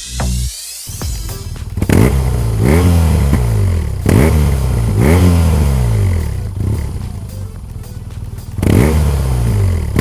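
BMW R1200GS boxer-twin engine idling, revved with about four quick throttle blips that each fall back to idle, through its stock exhaust with the exhaust valve stuck open.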